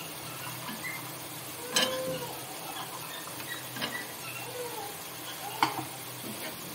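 Metal spatula stirring boiled chickpeas through frying masala in a pan: a steady sizzle with a few sharp clinks of the spatula against the pan, the loudest about two seconds in and another near the end.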